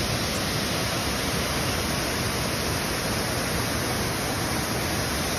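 Waterfall pouring over a rock ledge into a foaming pool: a steady, unbroken rush of falling water.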